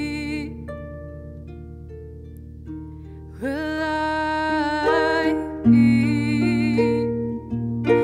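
Harp music with a woman singing: the harp plays softly on its own for a few seconds, then the voice comes back in about three seconds in, with sung phrases over the plucked harp notes.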